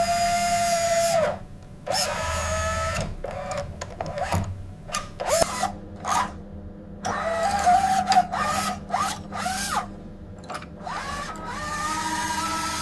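Small electric motors of RC construction models whining: a steady whine cuts off about a second in, followed by short stop-start whines that bend in pitch, with sharp clicks between them, and a steadier whine returns near the end.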